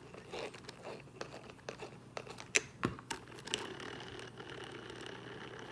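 Light clicks and rattles of hands working on a plastic RC truck wheel and its wheel nut, with a few sharper clicks about two and a half to three and a half seconds in.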